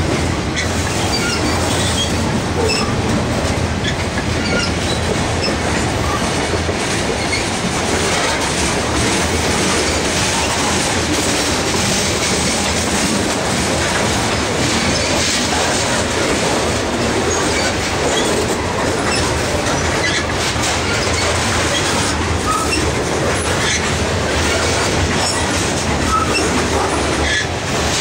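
Freight cars of a CSX train rolling steadily past close by: a constant rumble of steel wheels on rail with clickety-clack over the rail joints and brief high squeaks here and there.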